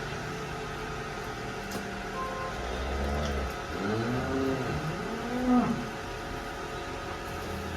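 A cow mooing three times in close succession, each call rising and then falling in pitch, the last one the loudest, over a steady mechanical hum.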